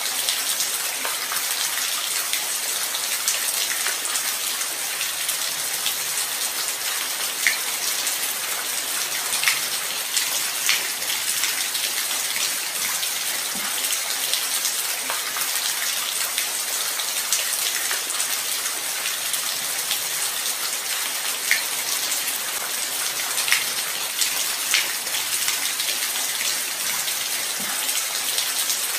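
Steady light rain falling: an even hiss with scattered sharper drop ticks standing out now and then.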